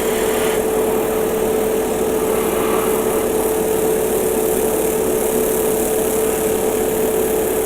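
Airbrush air compressor running steadily, a constant hum over an even hiss of air.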